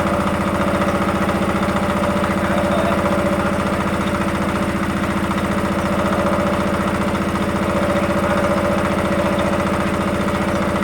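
Engine of a TY50 geological survey drilling rig running steadily at an even speed.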